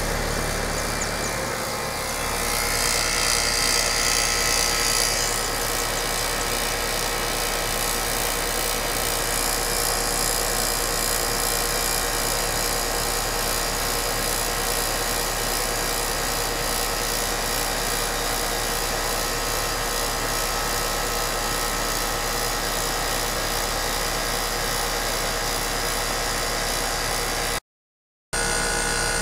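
Air-conditioner condenser unit running with a steady mechanical hum from its compressor and fan, its failed run capacitor just replaced. About three seconds in, a hiss rises for a couple of seconds, and the sound cuts out for under a second near the end.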